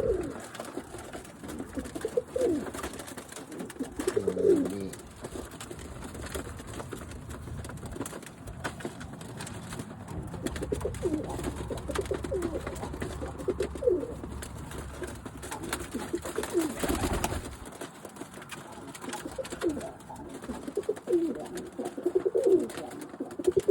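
Birmingham roller pigeons cooing over and over, each coo a short low call falling in pitch. Scattered clicks and one brief rushing noise partway through.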